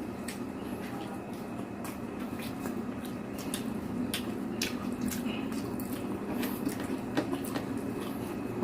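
Close-up eating sounds: wet chewing and mouth clicks with scattered light clinks of cutlery on a plate, many small sharp ticks throughout.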